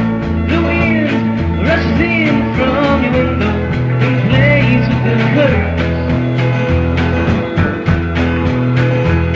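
Rock background music: a repeating bass line under held chords, with a melody that bends in pitch through roughly the first half.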